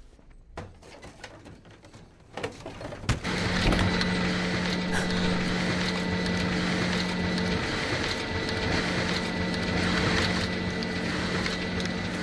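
Photocopier running: a few light clicks, then about three seconds in a steady mechanical whir with a hum starts suddenly and carries on.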